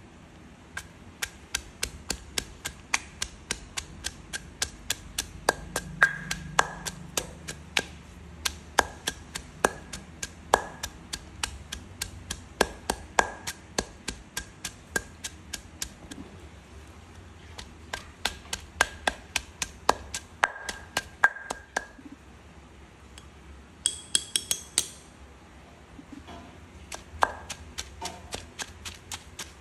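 Wooden pestle pounding lemongrass, garlic, shallots and turmeric in a stone mortar to a curry paste: regular sharp knocks about two to three a second, thinning out briefly about two-thirds of the way through.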